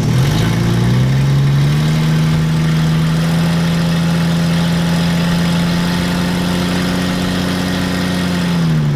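Jeep Grand Cherokee engine raised to a higher speed under load as the Jeep strains against tow straps tied to a tree, pulling out a dent in its front end. The engine rises about a second in, holds steady, then drops back near the end.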